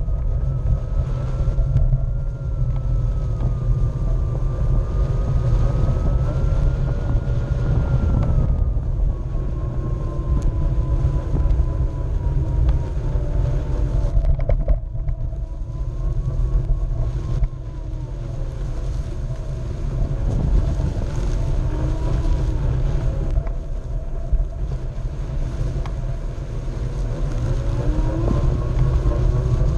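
Onewheel's electric hub motor whining as it rides over grass, the whine's pitch wandering up and down with speed and climbing near the end. Under it runs a heavy low rumble of the tyre rolling on turf and wind on the microphone.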